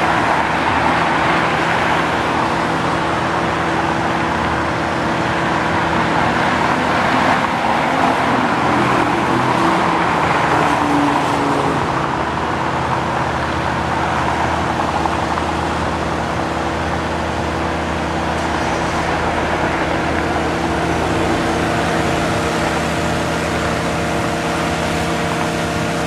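Audi road cars driving past at slow parade pace: a steady blend of engine and tyre noise with a constant low engine hum underneath, a little louder in the first half.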